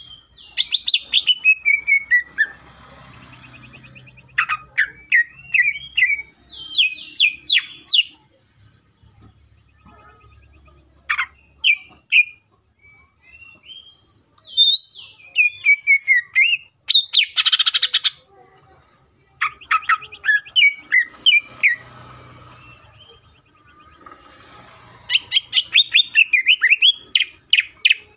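Male greater green leafbird singing in loud phrases of rapid, sliding whistled notes broken by short pauses, with one harsh rasping burst about two-thirds of the way through.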